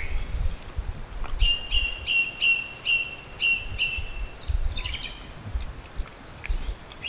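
A songbird singing a run of about nine quick repeated high notes, about three a second, followed near the middle by a short chirpy phrase. Low rumbles come and go underneath.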